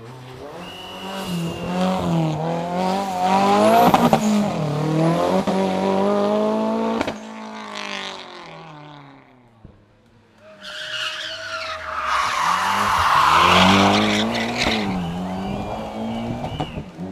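Two hillclimb race cars take a tight hairpin one after the other. Each engine revs hard, its pitch climbing and dropping through gear changes as the car brakes into the bend and accelerates out. There is a brief lull between the two cars.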